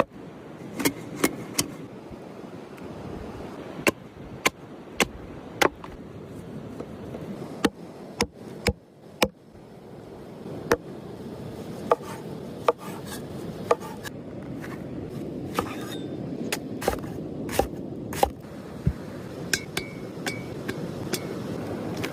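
Kitchen utensils knocking and clinking against cookware at irregular intervals, with a steady scraping, rubbing noise between the knocks.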